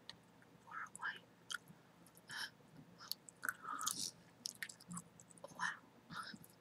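Chewing gum, close-miked: irregular wet smacks and clicks of the mouth and gum, a few a second.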